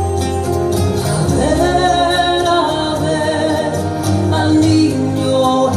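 Live band playing a Spanish-language Christmas song on piano, bass and drums, with a held, bending melodic line over the accompaniment between sung phrases.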